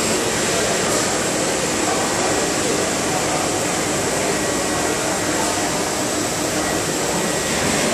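Steady machine-shop noise from running CNC machines: an even hiss and hum with a faint high whine over it.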